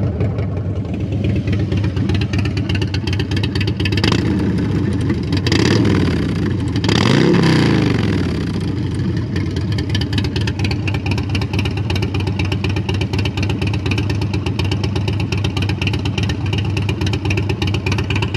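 Harley-Davidson Twin Cam V-twin on a 2017 Dyna Low Rider, running through an aftermarket SP Concepts Lane Splitter exhaust, idling with an uneven beat. It is blipped briefly around four and six seconds in and revved once about seven seconds in, rising and falling back to idle. The exhaust is loud.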